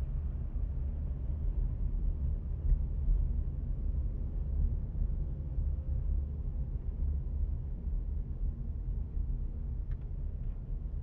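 Steady low rumble of a car's engine and tyres heard inside the cabin while driving slowly at about 20 km/h, with a few faint ticks near the end.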